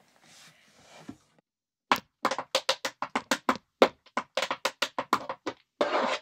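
Metal taps on heeled tap shoes striking a wooden floor in an uneven dance rhythm, several sharp taps a second, starting about two seconds in. They close with a fast roll of taps near the end.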